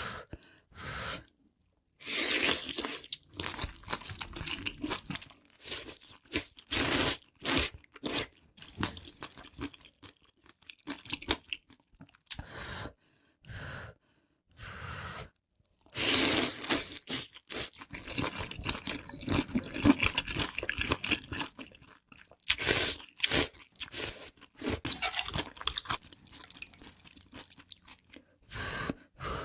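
Close-miked eating: bites into crunchy food and chewing, in clusters of crisp crunches with short pauses between them. The loudest clusters come about two seconds in, around the middle, and a few seconds later.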